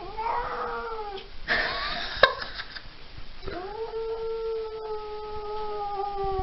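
Cat howling: a first drawn-out yowl, a short harsh noisy burst with a sharp click, then a long steady yowl held for about three seconds that sags in pitch at the end.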